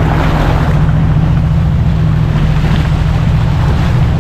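A vehicle engine running steadily, a loud low drone with rough rumbling noise over it.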